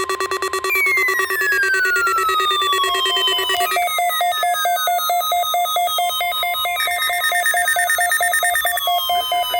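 Layered electronic alarm tones making up a mock weather-radio test signal: several tones pulse rapidly like a trilling phone ringer, and a falling-pitch sweep starts about every three seconds. The pulsing tones shift to a higher pitch about four seconds in.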